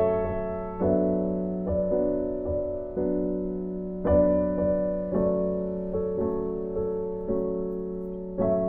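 Background piano music: slow, gentle notes and chords struck about once a second, each fading away before the next.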